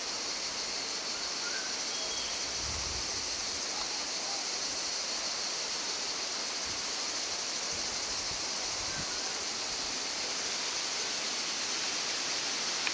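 A steady, high insect chorus over an even rushing hiss, with a few faint bird chirps.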